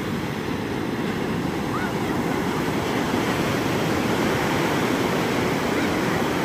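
Small ocean waves breaking close in and washing up the sand: a steady, even rush of surf.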